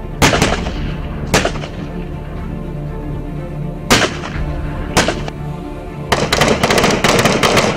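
Gunfire: four single shots spaced a second or more apart, then rapid automatic fire from about six seconds in, over background music.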